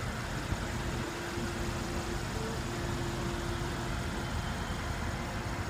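Car engine idling: a steady low rumble with a constant hum.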